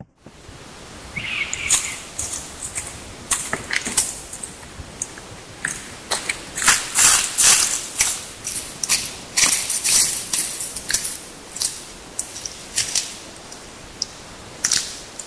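Close-miked field recording of a plastic battery box holding recording gear being handled: irregular sharp taps and clicks, often in quick rattling runs, over steady hiss. The recordist takes it for an unknown animal rolling its fingers and slapping the box.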